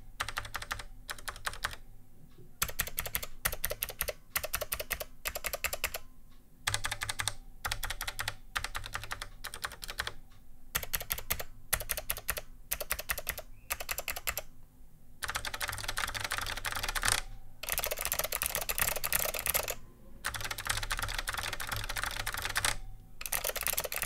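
Fast typing in bursts on a vintage Hottek 1KB101 with HTK switches (MX-mount click-leaf hybrids): a chunky clack and click on every keystroke, with short pauses between runs. Later, the same typing on a keyboard with Blue Alps switches for comparison, in denser runs.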